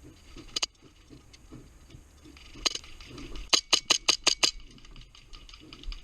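Airsoft guns firing: a couple of single sharp shots, then a quick string of about six shots in a second.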